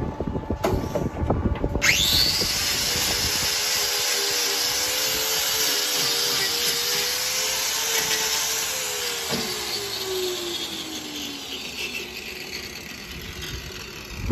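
Angle grinder with a hoof-trimming disc starting up about two seconds in with a rising whine, then running steadily as it grinds a cow's hoof, and winding down with a falling whine from about nine seconds. A few knocks come before it starts.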